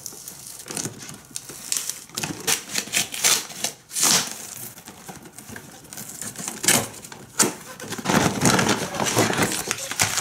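Cardboard toy box being torn open by hand: the glued end flap ripping and paper-backed cardboard scraping, with irregular sharp clicks and rustles of plastic parts being handled, busier near the end.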